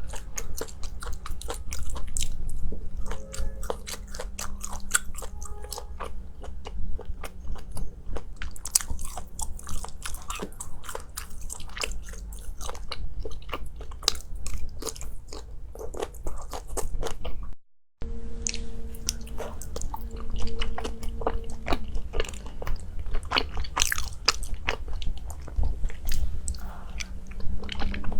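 Close-miked eating: a person biting into and chewing crunchy food, with dense sharp crackling crunches. The sound cuts out briefly about two-thirds of the way through, then the chewing resumes.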